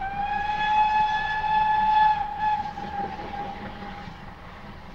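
Pannier tank No. 9466's steam whistle sounding one long blast, a steady high note. It is loudest for about two seconds, then fades away by about four seconds in, over a low background rumble.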